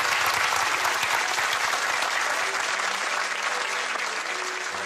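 Audience applauding, dense and steady, easing off a little towards the end.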